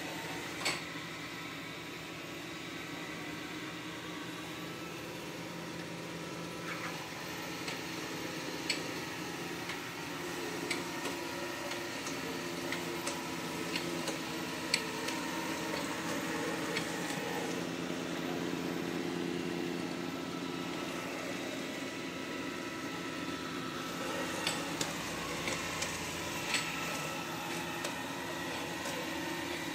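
Dreame L40 Ultra robot vacuum running as it cleans a tiled floor, its suction fan and brushes giving a steady hum. Several sharp clicks are scattered through it.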